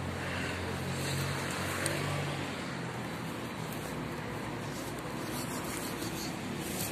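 Steady road-traffic noise: a vehicle engine's low hum with the wash of passing cars.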